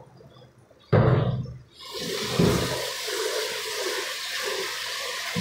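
Tap water running steadily into a stainless steel kitchen sink, with a sudden loud knock about a second in, just before the water noise begins.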